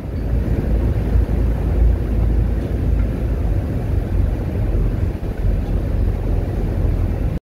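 Steady low rumble of a vehicle in motion, with no distinct events, cut off abruptly near the end.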